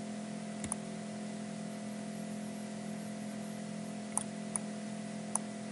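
Steady electrical hum and hiss on the recording, with a few faint computer mouse clicks: two close together under a second in, then three more spread over the last two seconds.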